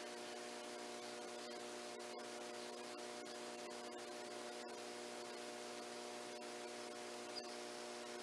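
Steady electrical hum, a stack of low even tones over a constant hiss, with one faint tick about seven seconds in.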